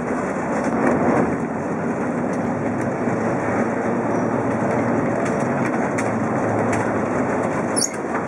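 Heritage electric tram running along street rails, heard from inside its wooden cab: a steady rumble of wheels on track with scattered light clicks, and a brief high squeak near the end.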